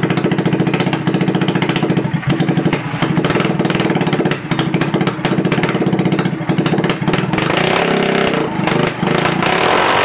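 150cc go kart's single-cylinder four-stroke engine running just after being started, driving a freshly fitted CVT drive belt. It idles with a fast, even beat at first, then runs less evenly from about two seconds in, and gets louder and rougher near the end.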